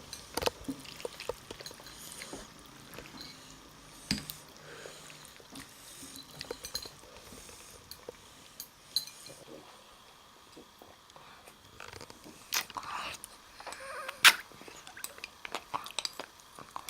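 Someone eating a bowl of ramen: scattered small clicks and knocks of utensils against the bowl, with short wet mouth and chewing noises; the knocks come thicker and louder about three quarters of the way through.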